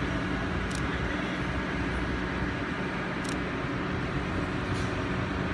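Mobile crane's diesel engine running steadily as it holds and lowers a walkway span, with two faint high ticks about a second and three seconds in.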